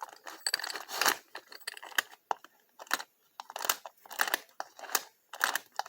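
Irregular run of sharp metallic clicks and rattles from a freshly installed doorknob and deadbolt being handled and worked.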